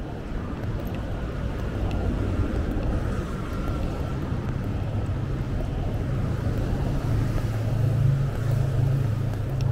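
City street traffic, with a vehicle's engine running close by as a low, steady hum that grows louder in the second half.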